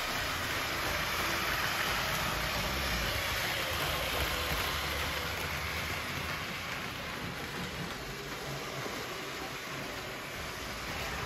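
LEGO trains running on plastic track: a steady, even rolling noise.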